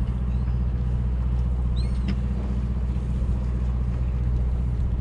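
A charter fishing boat's engine running steadily, a constant low drone. A brief high squeak about two seconds in.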